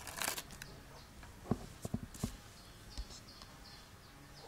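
Scattered light clicks and knocks of plastic toy cars being handled and set down, five or so sharp taps a second or so apart.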